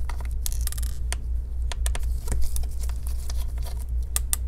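Irregular small clicks and ticks of a T8 screwdriver working the screws out of a MacBook Pro A1502's display hinges, over a steady low hum.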